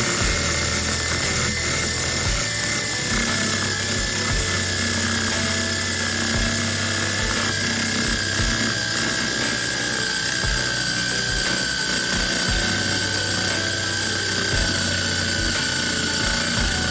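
A small power tool running steadily, its whine slowly dropping in pitch, with occasional low thumps.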